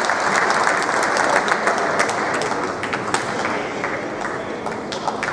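Spectator noise and clapping in a sports hall, dying down after about three seconds, with sharp clicks from the badminton rally's racket strikes on the shuttlecock.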